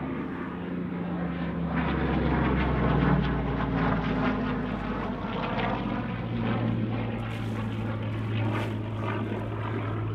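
Hawker Hurricane's Rolls-Royce Merlin V12 engine and propeller running in flight, loudest in the first few seconds. About halfway through, the engine note settles to a lower, steady pitch.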